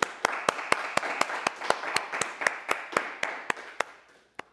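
Audience applause with one pair of hands clapping sharply and evenly close to the microphone, about four claps a second. The applause fades out near the end, leaving a last single clap.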